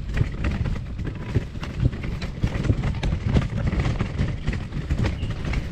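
Footsteps of several people walking on a hiking trail, an irregular run of footfalls several a second, over a steady low rumble.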